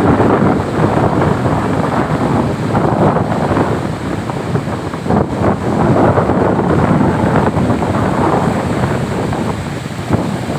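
Strong wind buffeting the microphone over the rush of heavy surf, a loud, gusting roar that rises and falls without pause.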